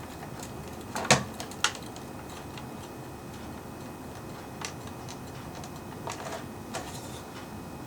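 Small irregular clicks and taps from working a stuck plastic gear loose inside a quartz clock movement, with two sharper clicks about a second in.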